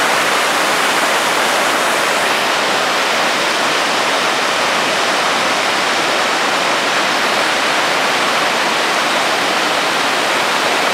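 Mountain torrent rushing down a series of small cascades over boulders: a steady, even roar of white water.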